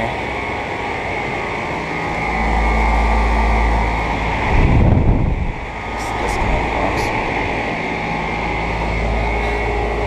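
2010 Goodman 5-ton central air conditioner condenser running: a steady fan rush over a low compressor hum, with a low rumble that swells around the middle.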